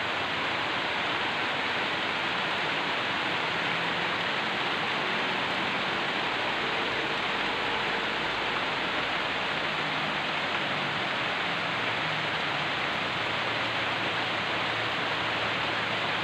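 Heavy rain pouring down steadily, an even, unbroken hiss of a downpour.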